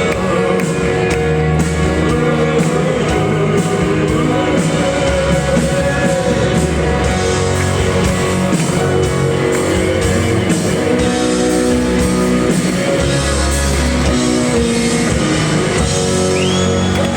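Live rock band playing loudly, with electric guitars over bass and drum kit, recorded from the audience.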